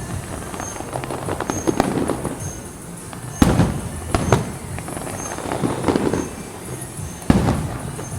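Fireworks going off: two sharp booms, about three and a half seconds in and near the end, with smaller pops and crackling between them.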